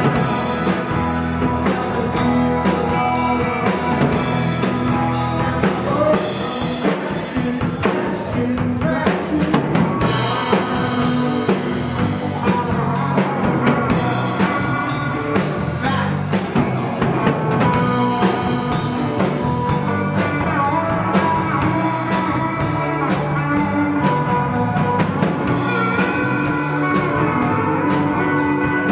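Live rock band playing: electric guitars and electric bass over a drum kit keeping a steady beat.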